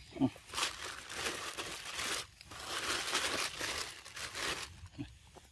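A monkey gives a brief falling squeak, then a crinkly rustling noise runs for about four seconds, broken briefly about two seconds in, before dying away near the end.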